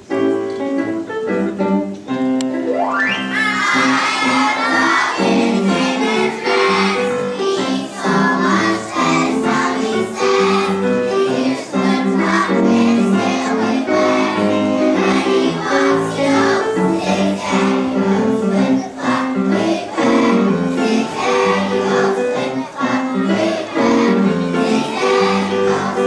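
A group of young children singing a song together in unison, with acoustic guitar accompaniment; the voices join the guitar about three seconds in.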